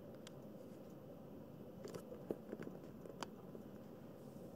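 A kitten shifting and clambering about in a plush fabric pet bed: a few faint, soft clicks and rustles over a low, steady room hum.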